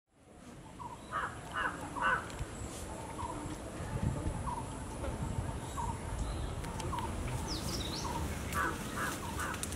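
A crow cawing, three harsh caws about a second in and three more near the end. Another bird repeats a short note about every 0.7 s in between, with a brief high whistle shortly before the last caws.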